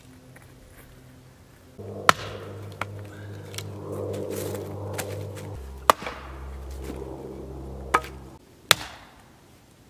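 A hatchet splitting firewood into kindling on a chopping block: a series of sharp wooden knocks, loud ones about two, six, eight and nine seconds in with softer taps between.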